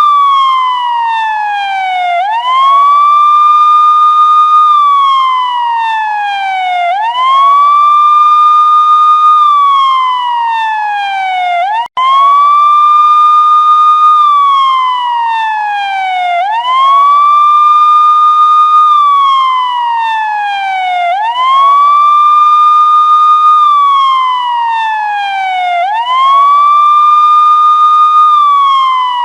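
Police car siren sounding a wail: each cycle rises quickly, holds a high tone for about two seconds, then falls slowly, repeating about every four and a half seconds. The sound drops out for an instant about twelve seconds in.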